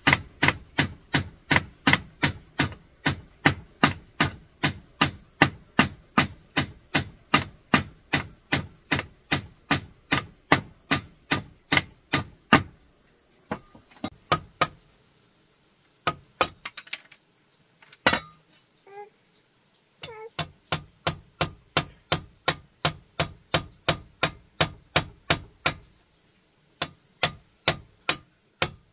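Hammer blows struck steadily at about two to three a second. They break off for several seconds midway, with only a few scattered strikes, then resume at the same pace.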